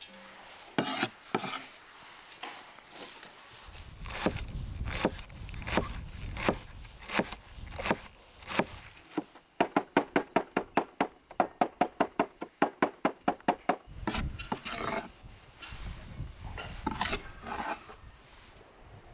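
Chef's knife on a wooden cutting board: scattered knocks and scrapes, then about nine seconds in a fast, even run of chops through fresh herbs, about five a second, for some four seconds. After that the blade scrapes and taps across the board.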